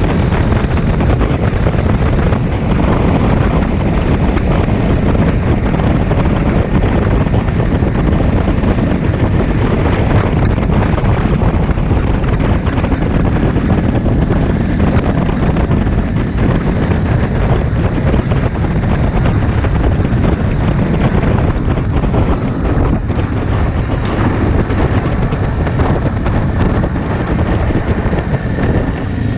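ATV under way on a gravel trail: its engine running steadily beneath heavy wind rushing over the microphone.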